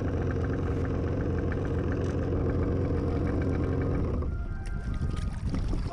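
Kawasaki 650SX two-stroke twin engine of a stand-up jet ski idling steadily, then stopping abruptly about four seconds in.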